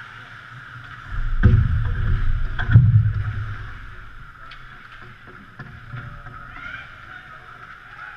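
Ice hockey play around the goal: two heavy knocks with a low rumble about one and a half and three seconds in, then scattered sharp clicks over a steady arena hum.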